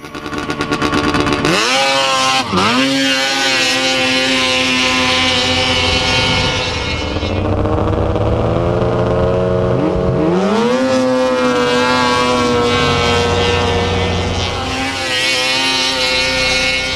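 Snowmobile engines revving hard and running at high speed: the pitch climbs sharply, holds high, sags about seven seconds in, then climbs again around ten seconds in and holds.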